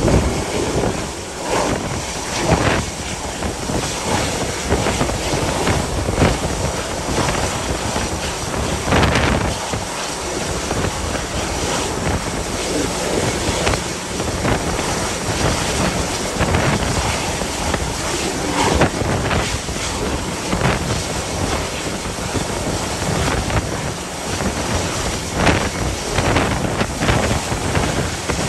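Gale-force wind buffeting the microphone in uneven gusts, over the steady rush of rough sea.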